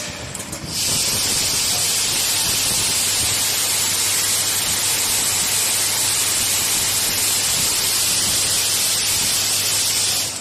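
Transformer soldering machine giving a loud, steady hiss with a low hum beneath it. The hiss starts about a second in and cuts off abruptly near the end.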